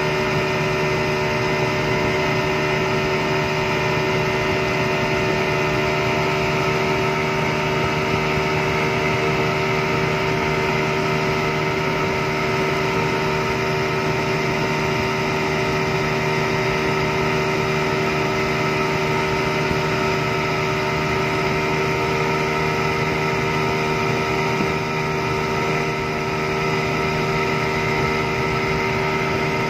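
Yamaha 200 hp two-stroke V6 outboard motor running steadily at high speed, with a constant engine note over the rush of the boat's wake and spray.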